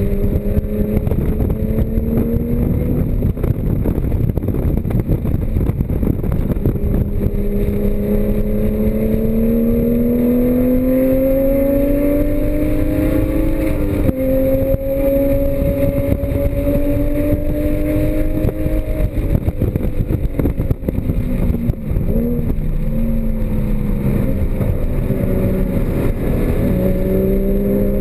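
Porsche Cayman GTS flat-six engine at full throttle on a race track: the engine note climbs steadily through the revs with a brief step about halfway in, drops off with a few short blips a little later as the car brakes and downshifts, then climbs again near the end. Steady road and wind noise lies under it.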